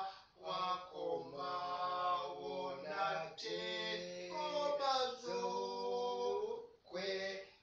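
A man singing unaccompanied in a full voice, holding long notes that slide from pitch to pitch, with two short breaks, one just after the start and one near the end.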